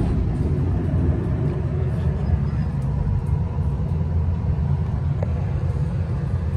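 Steady low rumble of road and tyre noise inside a moving BYD Alexander Dennis Enviro200EV battery-electric single-decker bus, with no engine note.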